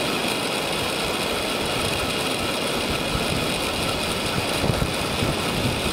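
Steady rushing noise of wind and surf on an open beach, with uneven low rumbling from wind on the microphone.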